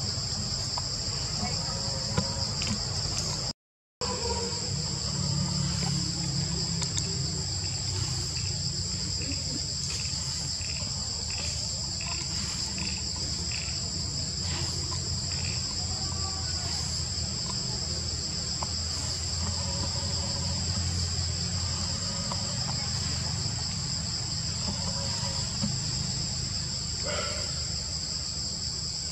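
Insects droning steadily at two high, even pitches over a low rumble. The sound drops out completely for a moment about four seconds in.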